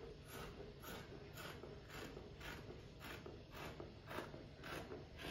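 Fabric scissors cutting through a layer of cloth: a steady run of faint snips, about two a second, as the blades close along a curved cutting line.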